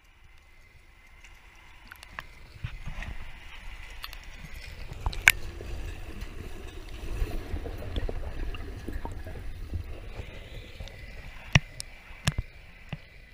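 Shallow sea water sloshing and splashing around a camera held at the surface as horses wade through it. There are a few sharp knocks, the loudest about five seconds in and two more near the end.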